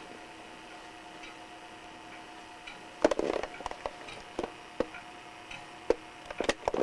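Small irregular clicks and taps from handling a plastic Sony Video8 camcorder's controls, among them its zoom rocker switch. They start about three seconds in, over a faint steady hum.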